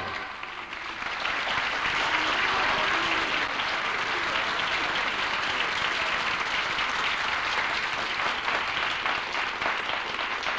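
Audience applause, dense and steady, swelling up in the first second as the dance music cuts off.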